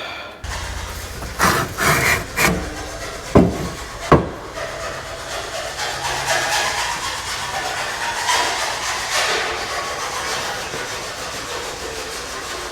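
Hand work on a Humvee's body during teardown: a few sharp knocks in the first four seconds, then continuous rubbing and scraping.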